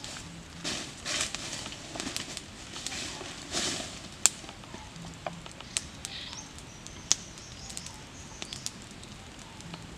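Dry leaf litter rustling under bare feet and hands, strongest in the first few seconds, followed by scattered sharp clicks and snaps.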